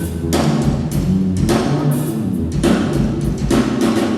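Drum kit played live and hard: repeated cymbal crashes with tom and bass drum hits, over sustained low pitched notes that change every second or so.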